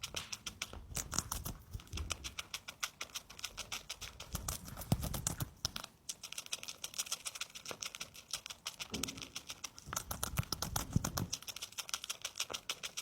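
A hamster chewing and crunching food close to the microphone: rapid crisp clicks, several a second, with a few soft low thumps in between.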